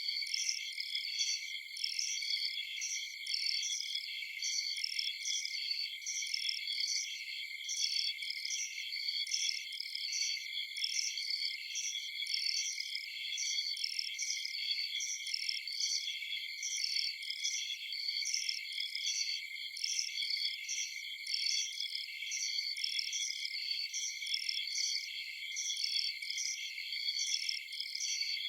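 Night chorus of crickets: several steady high-pitched trills layered together, with a regular pulsing chirp repeating about twice a second.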